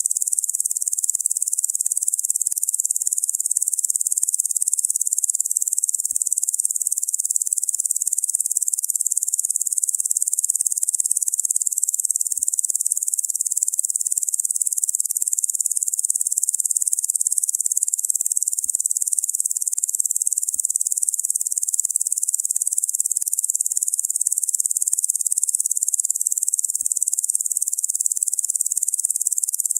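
Locusts making a steady, high-pitched shrill buzz.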